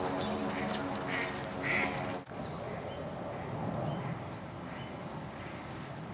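Dog-pulled sulky rolling over dry dirt with a steady mechanical hum and a few short calls. About two seconds in the sound cuts to quieter outdoor ambience at the water's edge.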